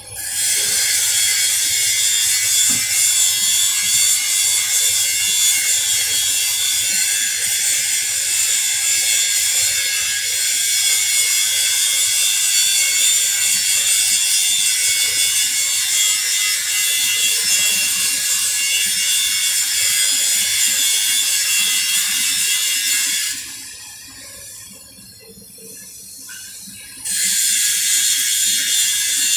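Arc welding crackling steadily; it stops about 23 seconds in and starts again a few seconds before the end.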